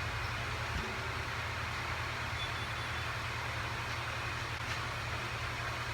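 A machine running steadily: a low, fast-pulsing hum under a steady hiss.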